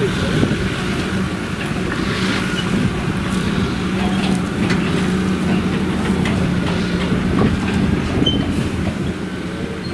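John Deere tractor engine running steadily as it pulls a large silage trailer past, with scattered clanks and rattles from the trailer over rough field ground.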